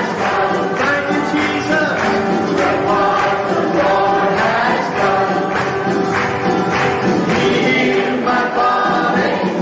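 A choir singing a hymn or worship song with instrumental accompaniment.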